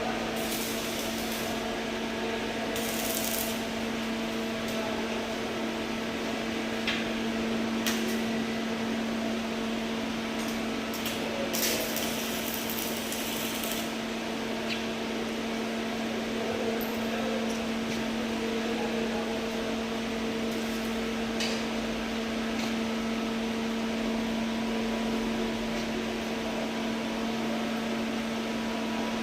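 Arc welding: a welding machine's steady hum under the even hiss and crackle of the arc, with a few sharp clicks and taps along the way.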